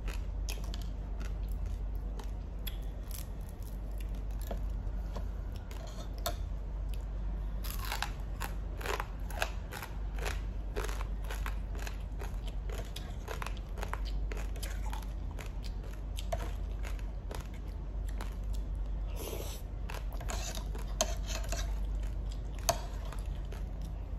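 Close-up eating sounds: a person chewing and crunching food, with many small sharp clicks and taps of a metal spoon against a metal pan, over a steady low hum.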